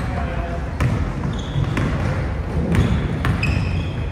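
Basketball being dribbled on a hardwood gym floor, bouncing about once a second. Short high squeaks come in twice, over a low murmur of voices in the hall.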